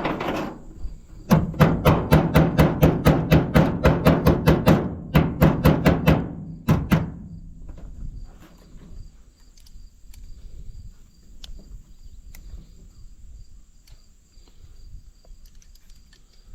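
A fast, even series of sharp knocks, about four or five a second for some five seconds, then two more; after that a steady high insect drone.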